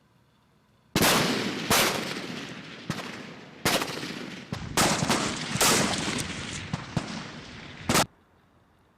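Rifle shots on a firing range: about ten single shots from more than one shooter, irregularly spaced, some louder and some fainter, each with a short echo. The shots start about a second in and stop about eight seconds in.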